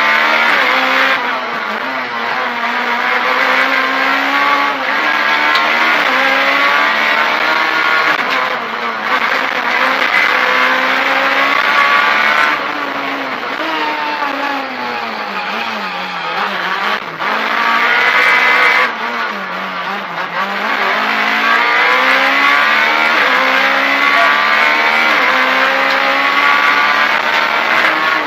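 Rally car engine heard from inside the cockpit at full stage pace, revs climbing hard again and again with quick drops between, as at gear changes. Past the middle the revs sag low twice before picking up again.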